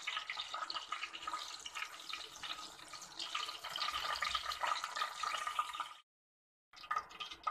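Cumin seeds sizzling and crackling in hot oil in a steel pan. The sound breaks off briefly near the end.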